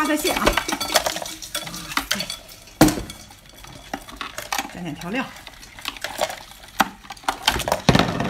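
A bowlful of small crabs tipped from a steel bowl into a glass bowl, then clicking and scraping against the glass as they are mixed by hand, with a couple of sharper clacks about three seconds in and near the end.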